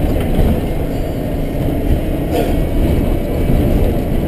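Car driving over a rough, bumpy road: a steady low rumble of engine and tyres, with a sharp knock a little over two seconds in.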